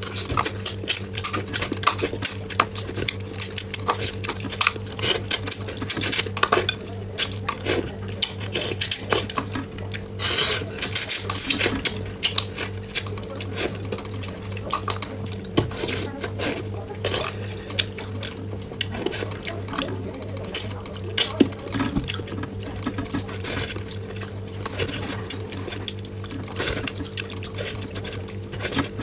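Close-miked eating of braised fish: chopsticks clicking against a small clear bowl and the plate, with wet chewing and sucking sounds as meat is pulled off the bones. A steady low hum runs underneath.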